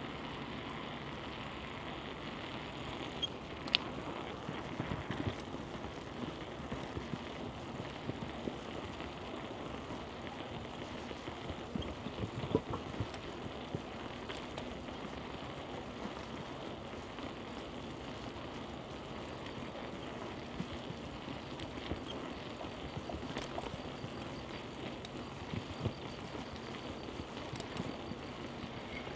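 Steady rush of wind and rolling road noise from riding a bicycle, with a few sharp clicks.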